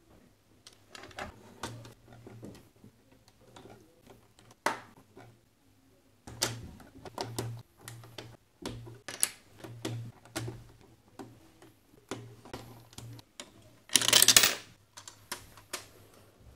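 Plastic LEGO bricks clicking and clacking irregularly as parts are handled, pressed together and fitted into the slot machine body, with a louder half-second clatter near the end.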